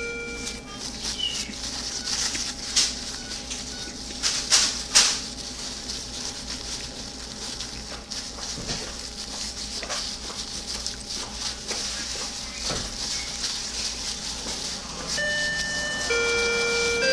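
Close-up chewing and lip-smacking of a person eating a donut, with scattered sharp mouth clicks over a steady hiss. The loudest clicks come about three to five seconds in.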